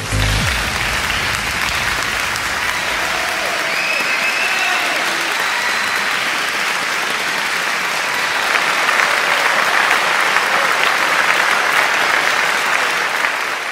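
A crowd applauding steadily, starting suddenly and tailing off near the end.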